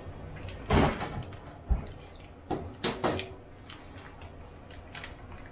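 Kitchen handling noises: a cabinet door under the sink shuts with a knock about a second in, followed by a low knock and a few sharp clicks and rustles as a plastic bag is handled and opened.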